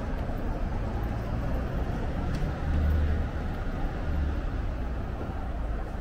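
City street ambience: a steady low traffic rumble that swells for a second or so about halfway through, as from a passing vehicle.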